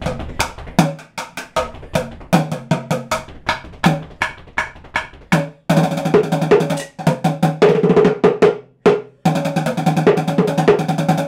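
Drumsticks beating a bongo and a bucket in a fast improvised solo. It starts with separate sharp hits, then turns into dense rapid rolls about halfway. A short break near the end comes before another roll.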